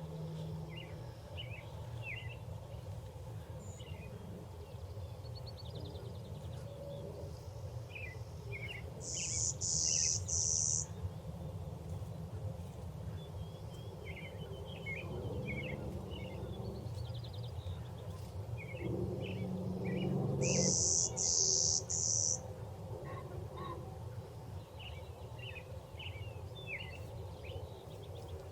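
Wild songbirds calling: scattered short chirps throughout, and twice a loud run of three buzzy high notes, about 9 and 20 seconds in, over a steady low background rumble.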